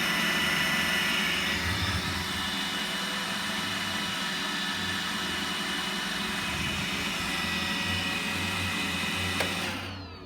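Roomba robot vacuum running: a steady motor whine over brush and suction noise with an uneven low hum. There is a single click near the end, and the sound then fades out.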